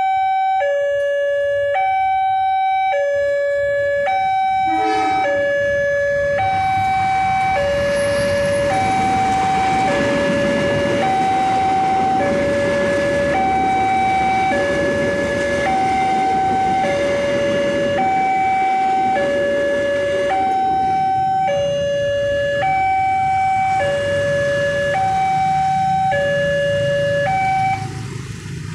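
Railway level-crossing warning siren sounding a two-tone high-low alternation, each tone held about a second. A broad rushing noise joins it about six seconds in and runs under it. The siren cuts off near the end.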